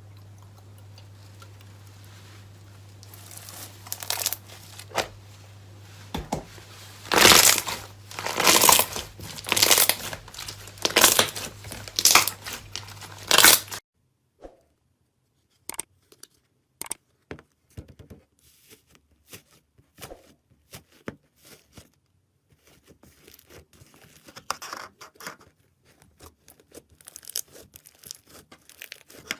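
Slime being handled for ASMR. First come about eight loud noisy strokes, each around half a second long, over a low steady hum. Then, after a cut, quieter scattered sharp clicks and crackles.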